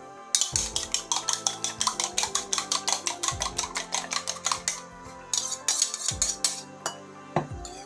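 A raw egg being beaten with a metal utensil in a small bowl: quick, even clinking against the bowl, about six strikes a second for some four seconds. A few more separate clinks follow as the egg is scraped out of the bowl.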